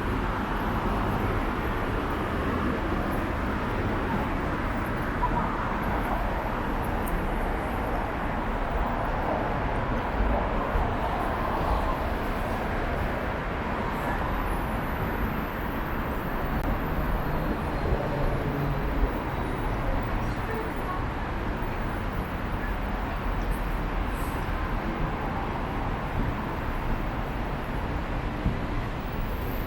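Steady road traffic noise on a busy city street, cars running past without a break.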